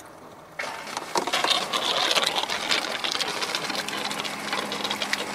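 Compressed air and water sputtering out of an RV outside-shower hose fitting as the line is opened to drain it, with a rapid chattering. The Floë drain-down system's small 12 V air compressor is running, a steady hum coming in about two-thirds through.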